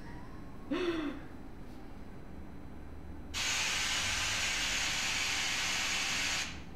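Generated noise played from a smartphone's speaker, a steady hiss that starts sharply a little past three seconds in and cuts off suddenly about three seconds later. A short sound with a quick rise and fall in pitch about a second in.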